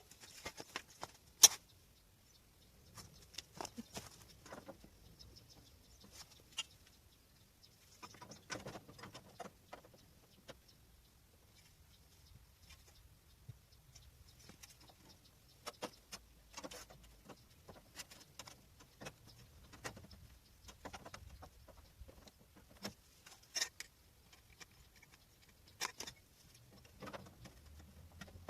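Irregular light clicks, taps and short scrapes of hand-tool work on a steel car fender, with one sharp click about a second and a half in.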